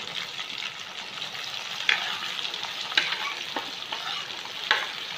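Chopped onions frying in hot oil in a wok with ginger and garlic, a steady sizzle, with a few sharp knocks of stirring against the pan.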